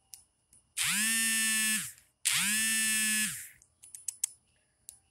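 Two loud buzzes from a small electric motor, each about a second long, spinning up to a steady hum and winding down, with a short gap between. A few faint clicks follow.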